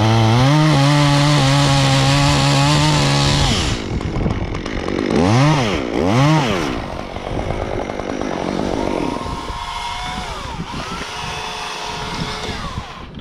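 Top-handle chainsaw cutting through a tree limb at full throttle for about three and a half seconds. The cut ends, then the saw revs up and down twice and drops back to a quieter, steady idle.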